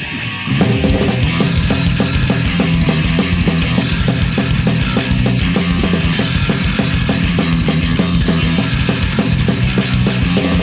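Loud rock band playing live: distorted guitar, bass and a fast drum beat in an instrumental passage. The full band crashes back in about half a second in after a brief drop.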